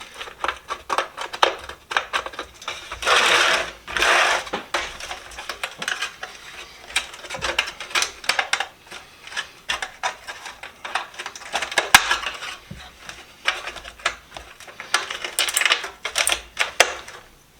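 Rust being brushed and scraped out of a metal toolbox by hand: rapid, irregular rasping strokes with metallic rattling, and two longer runs of scrubbing, a few seconds in and near the end.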